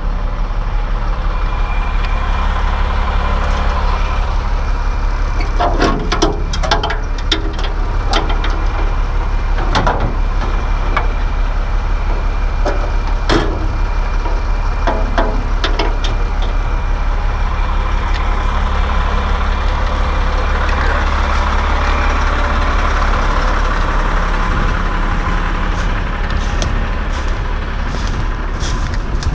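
A vehicle engine idling steadily, with scattered knocks and clatters through the middle and again near the end.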